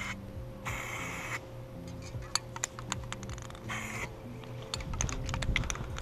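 Aerosol spray-paint can fired from a clip-on trigger handle in short bursts: two brief hisses of spray, about a second in and about four seconds in, among scattered sharp clicks.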